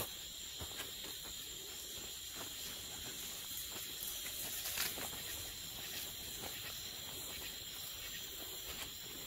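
Steady high chorus of night insects, with scattered soft steps and rustles in grass and one sharper click about five seconds in.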